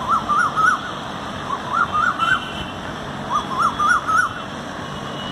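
Male Asian koel calling: three short phrases of four or five quick notes, each phrase climbing in pitch, about a second apart.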